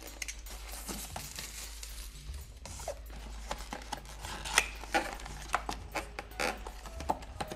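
A box cutter slitting the plastic shrink-wrap on a cardboard figure box, then the wrap crinkling and the cardboard scraping as the box flap is opened and the inner tray slid out: a run of short rustles and clicks.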